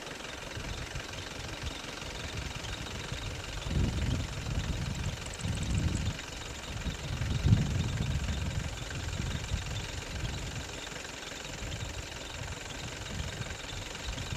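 A motor vehicle's engine idling steadily, with louder low rumbling swells between about four and eight seconds in.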